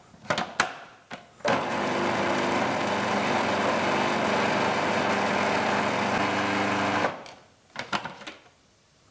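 Food processor motor blending chopped tomatoes with ginger and garlic: a steady whir that starts about a second and a half in and cuts off after about five and a half seconds. A few short clicks come before and after it.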